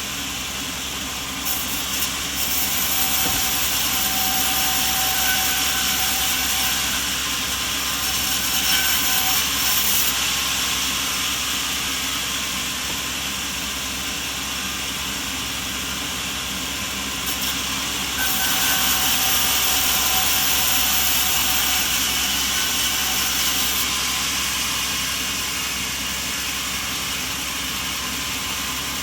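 Sawmill machinery running steadily, with a saw cutting wood in two longer stretches where the noise grows louder and hissier.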